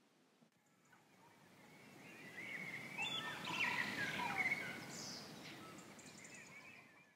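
Several birds chirping and singing over a steady outdoor hiss, swelling up over the first few seconds and then fading away toward the end.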